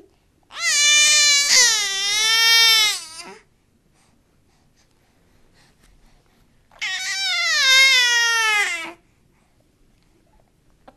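Two long, wavering wailing cries about four seconds apart, the first about three seconds long and the second shorter, sliding down in pitch at its end.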